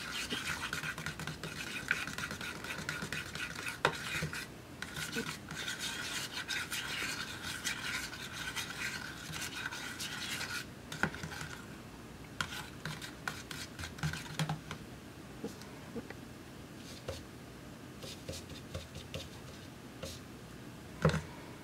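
Metal palette knife stirring and scraping thick paint around a plastic cup. The scraping is steady for about the first ten seconds, then turns quieter with scattered short scrapes and taps, and a sharp knock comes near the end.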